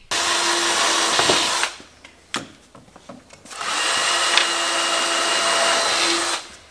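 Cordless drill running in two bursts of about two to three seconds each, working into the pallet-wood counter top, with a short knock in the pause between them.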